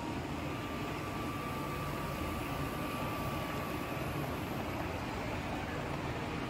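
Steady running noise of HO-scale model trains on the layout, with a faint steady whine for the first few seconds.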